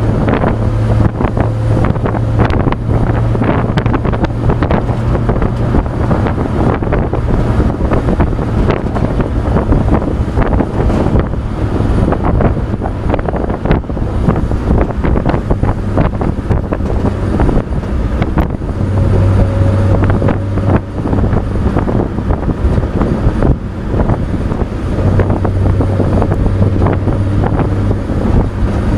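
1966 Chevrolet pickup truck on the move, heard from its open wooden bed: a steady low engine and road drone with wind buffeting the microphone and frequent small knocks and rattles. The engine drone swells twice in the second half.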